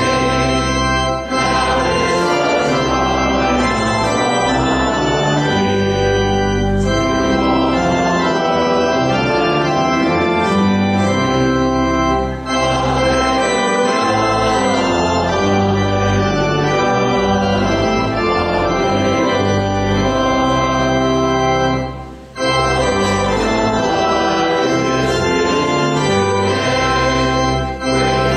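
Church organ playing a hymn in sustained chords, with the choir and congregation singing along. The music dips briefly between phrases, most deeply a little over 22 seconds in.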